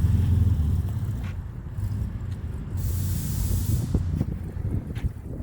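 1982 Lamborghini Countach 5000 S's 4.75-litre V12 running at low revs with a deep, rough rumble, the rough running of an engine due for a tune-up. A short hiss cuts in about three seconds in and lasts about a second.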